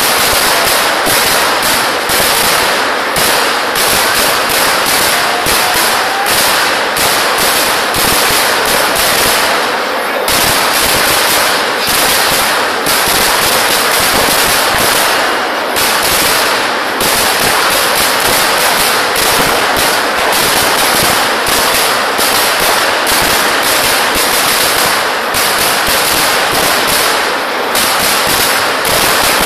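Fireworks at a Kerala temple festival: a dense, unbroken barrage of firecracker bangs going off in rapid succession, like machine-gun fire.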